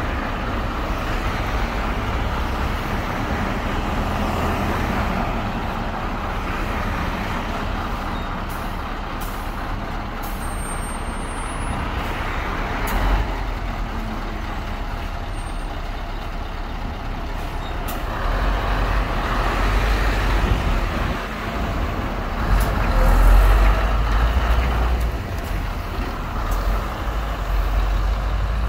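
Scania lorry's diesel engine running as the articulated truck creeps forward and pulls out onto the road, with a few short clicks early on. The engine grows louder in the second half as it pulls away.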